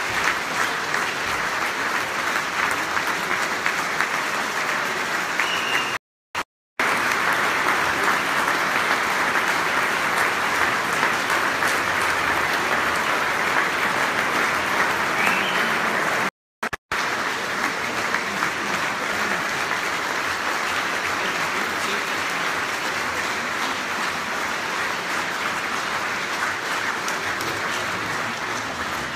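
Large hall audience applauding steadily at length. The sound cuts out completely twice for a moment, and the clapping begins to die away near the end.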